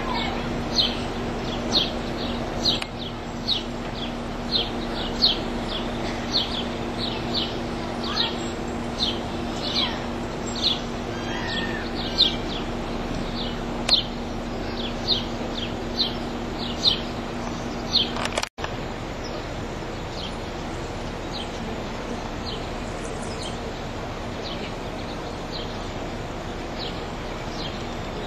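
A bird chirping over and over, short high chirps coming roughly once or twice a second, over a steady low hum. After a brief dropout about two-thirds of the way in, the hum is gone and the chirps carry on more faintly.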